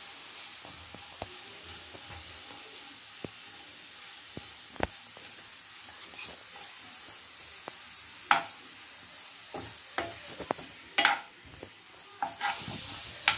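Diced carrots and grated coconut sizzling in oil in a frying pan, stirred with a slotted metal spatula that clicks and scrapes against the pan. The clicks are sparse at first and grow louder and more frequent in the second half.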